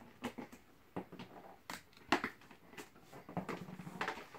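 Cardboard box and packing inserts being handled as a toy is taken out: scattered light scrapes, rustles and taps at irregular intervals.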